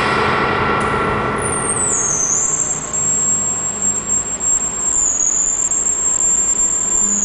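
Live experimental electronic noise from homemade electronic instruments, processed in Pure Data: a very high whistling tone that slides down a little about two seconds in and then holds with slight wavers, over a dense hiss.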